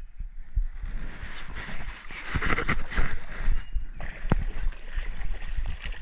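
Creek water sloshing and splashing as someone moves through it, with scattered light knocks and clicks.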